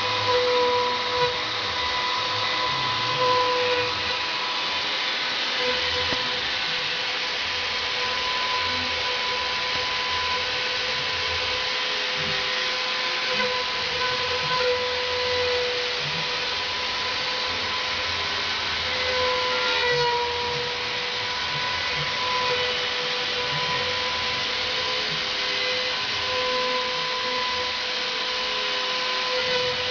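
CNC router running steadily, a constant whine over a steady rushing noise, with a few faint short gliding tones as the machine moves.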